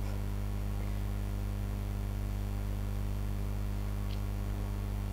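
Steady low electrical mains hum with faint hiss, unchanging throughout.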